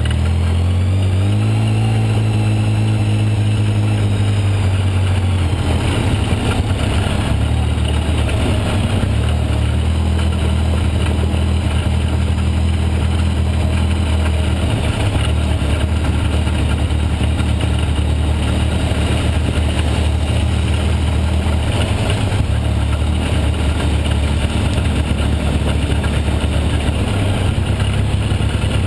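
Quad (ATV) engine running at slow trail speed close up, its pitch rising and falling a little as the throttle changes.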